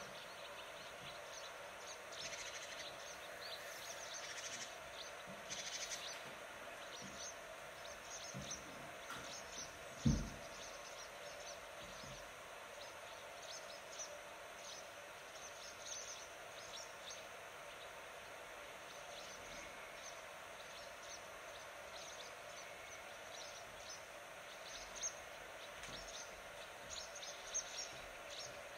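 Outdoor nature ambience: small birds chirping on and off over a steady background hiss, with a single dull thump about a third of the way through.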